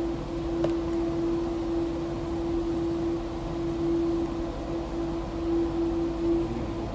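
A steady mechanical hum at one constant pitch over an even hiss, with a single light click under a second in.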